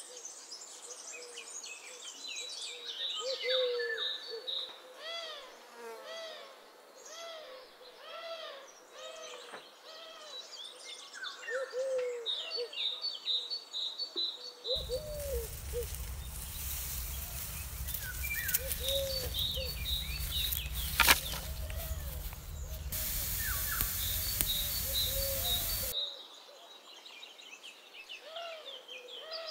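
Outdoor animal chorus: many short, low calls that rise and fall, repeated over and over, with rows of quick high chirps above them. For about ten seconds in the middle, wind rumbles on the microphone, with one sharp click partway through.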